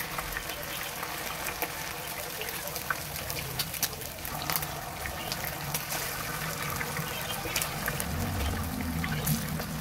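Chicken wings deep-frying in hot oil in a frying pan: a steady sizzle full of small crackles and pops as more raw wings are laid into the oil.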